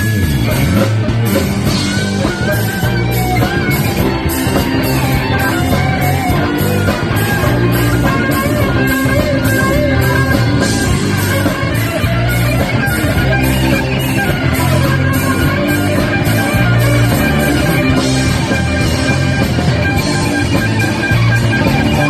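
Live rock band playing an instrumental passage with no vocals: drum kit keeping a steady beat, bass, and a wavering electric guitar lead line on top.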